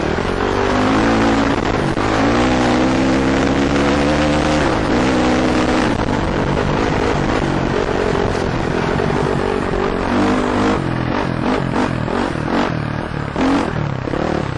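KTM 450 four-stroke dirt bike engine, heard from a helmet camera, revving up and easing off several times, with wind rushing over the microphone. In the last few seconds the engine note is broken up by a string of knocks and rattles.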